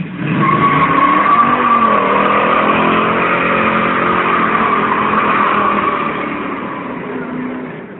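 A car doing a burnout: the V8 engine revs hard and the tyres squeal in one long steady screech, easing off over the last couple of seconds.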